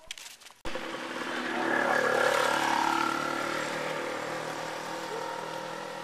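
Small motorcycle engine running as it goes by, swelling to its loudest about two seconds in and then slowly fading. The sound cuts in suddenly just under a second in.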